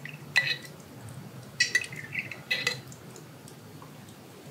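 A spoon scooping minced garlic from a glass jar, clinking lightly against the glass a few times.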